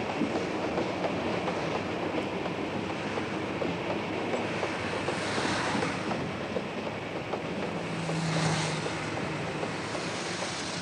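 Steady rumble and clatter of a moving train with wind rushing past, swelling twice in the second half and cutting off suddenly at the end.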